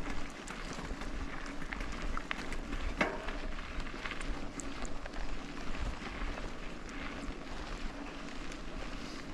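Mountain bike rolling over a dirt trail: tyre noise on loose ground with frequent small clicks and rattles from the bike, and one sharper knock about three seconds in.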